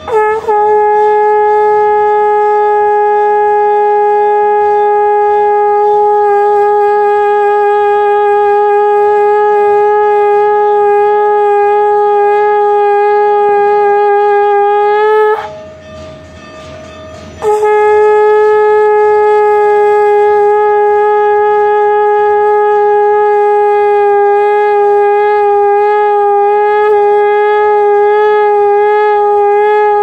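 Conch shell (shankh) blown in two long, steady blasts, each starting with a quick rise in pitch, with a pause of about two seconds between them.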